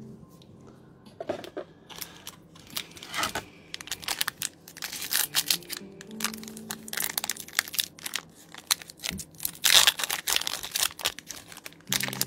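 Foil wrapper of a Pokémon TCG booster pack crinkling and tearing as the pack is opened, in irregular crackles that are loudest a little before ten seconds in.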